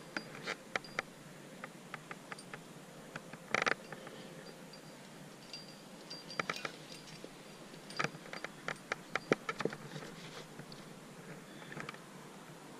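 Scattered small clicks and clinks of climbing gear, likely carabiners and hardware knocking together, with a brief scrape about three and a half seconds in. The clicks come in loose clusters near the start, in the middle and about two thirds of the way through.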